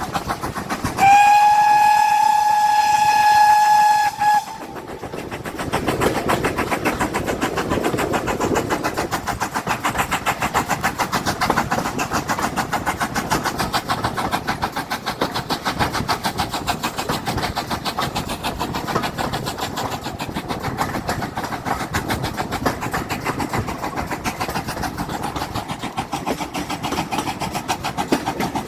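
A train's whistle sounds once, a single held note of about three seconds that starts about a second in; then the train runs with a fast, steady rhythmic beat.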